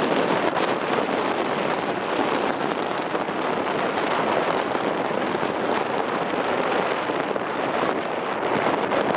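Strong wind blowing across the microphone aboard a moving ferry: a steady, unbroken rush of noise.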